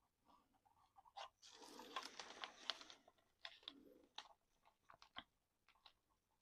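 Faint handling noise from a small plastic RC truck body and its screws: a spell of scratchy rattling and scraping about one and a half seconds in, then a few separate small clicks.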